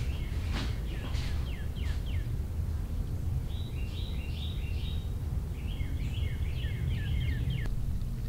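A bird calling in three runs of short, quickly repeated chirps, over a steady low rumble.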